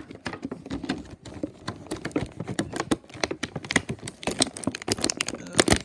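Hands handling a toy's cardboard box and plastic packaging: a quick, uneven run of clicks, taps and crinkles that gets busier and louder in the last couple of seconds.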